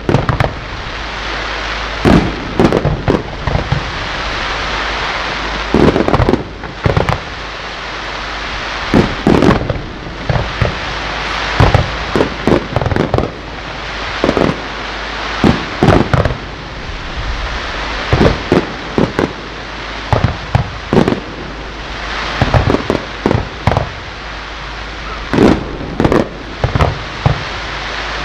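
Fireworks display: aerial shells bursting in loud bangs at irregular intervals, often two or three in quick succession, over a continuous rushing noise.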